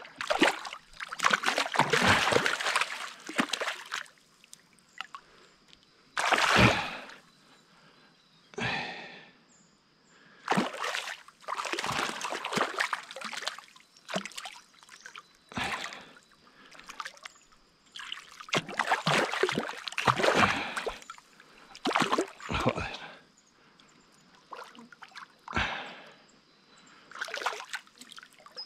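A large hooked trout thrashing at the water's surface, in repeated splashes one to two seconds long with short gaps between.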